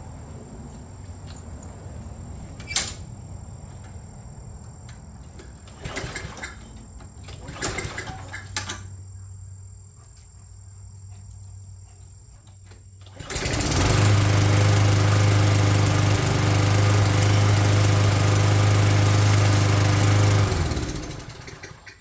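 Toro GTS Recycler mower's Tecumseh 6.5 hp engine, tried cold after sitting overnight on a replacement aftermarket carburetor, starts about thirteen seconds in and runs steadily for about seven seconds before it is shut off and winds down. A few faint knocks come before it starts.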